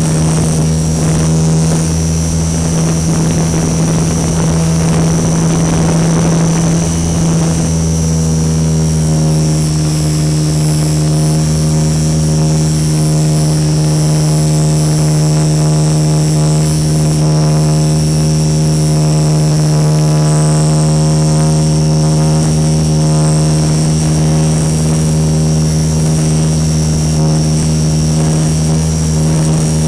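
Radio-controlled Super Cub model plane's motor and propeller droning at a steady pitch, picked up by a camera mounted on the airframe, with a high whine over the hum. A rough rushing noise rides over it for the first several seconds, then fades. The owner reports heavy vibration in the plane.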